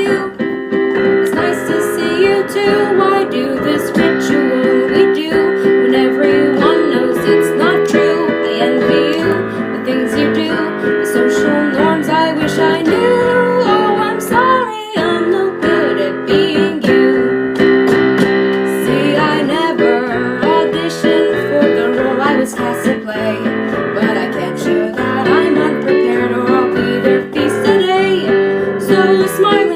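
Music: a song with guitar and piano accompaniment and a female voice singing, with a brief break about fifteen seconds in.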